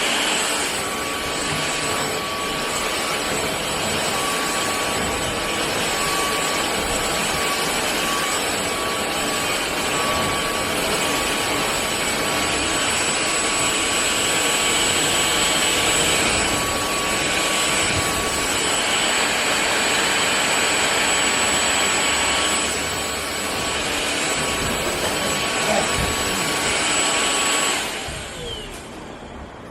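Cordless stick vacuum running with a steady rushing motor noise and a high whine. It switches off near the end and winds down.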